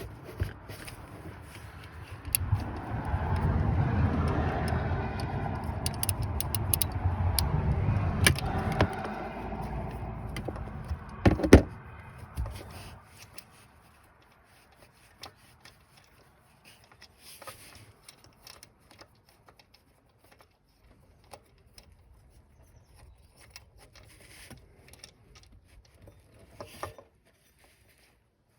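Hand tools working on an engine-bay bolt: metal clicks, clinks and scraping. For the first ten seconds or so a loud low rumble runs under it, with a sharp loud clack near its end, then only sparse small clicks.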